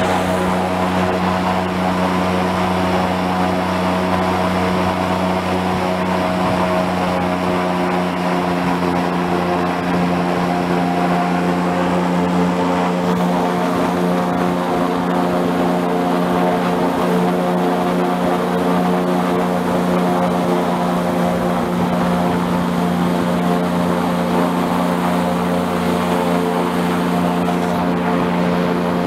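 Airboat's engine and open air propeller running steadily at cruising speed, a loud, even drone.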